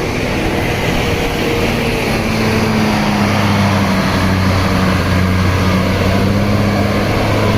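Large bus's diesel engine running with a steady low drone that grows stronger about two seconds in.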